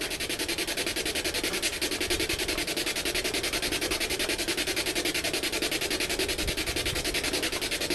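Ghost box (spirit box) radio sweeping AM/FM frequencies at high speed: a steady, rapid chop of static hiss, many pulses a second.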